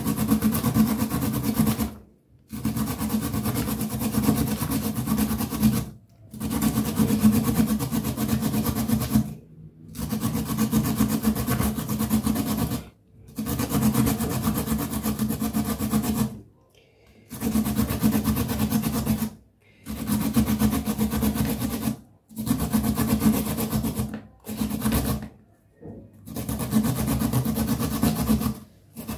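Carrot being grated on a handheld grater: fast rasping strokes in runs of two to three seconds, with short pauses between runs.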